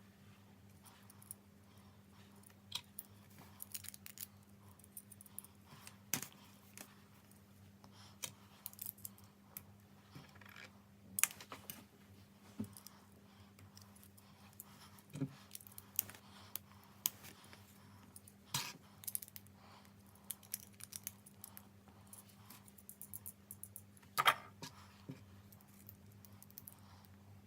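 Small plastic Lego pieces clicking and rattling while a set is being built, with irregular scattered clicks and a few louder taps.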